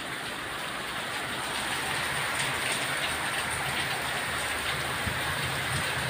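Heavy rain pouring down, a steady hiss that grows a little louder over the first two seconds.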